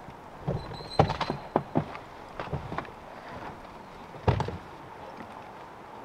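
A run of knocks and clunks with a brief high squeak among them, then one heavy thump about four seconds in.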